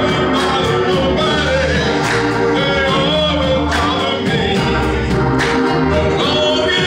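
Gospel music: a male chorus singing, with instrumental accompaniment that holds sustained bass notes under a steady beat.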